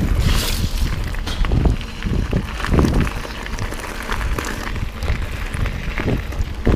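Wind buffeting the microphone of a mountain bike's camera at speed, with the tyres rumbling and the bike knocking and rattling irregularly over rough trail.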